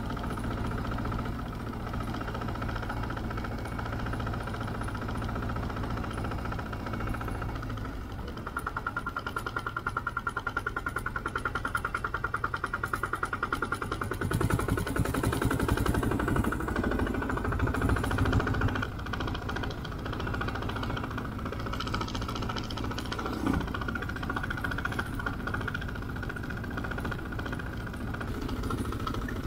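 Motorcycle engine running steadily on the move, heard from the rider's seat; about a third of the way in its beat grows louder and pulses rapidly for several seconds.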